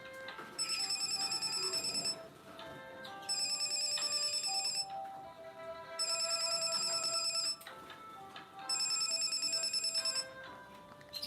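Sharp GX17 mobile phone playing a built-in polyphonic ringtone: a synthesized melody with a loud, high, rapidly trilling burst about a second and a half long that repeats every few seconds.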